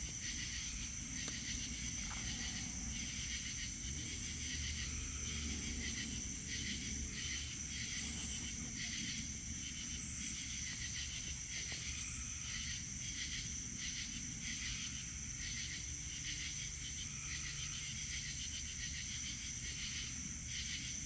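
Insect chorus, typical of crickets: a steady high trill with rhythmic pulsed chirps repeating over it, above a low steady rumble.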